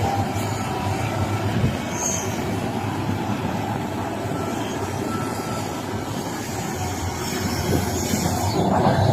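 Heavy diesel earthmoving machinery running steadily, a large mining excavator loading a dump truck, with a deep engine rumble that grows louder near the end.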